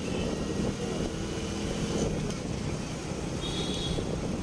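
Small commuter motorcycle running at a steady cruise of about 40 km/h, engine hum mixed with wind and road noise on the bike-mounted microphone. A brief high-pitched tone sounds about three and a half seconds in.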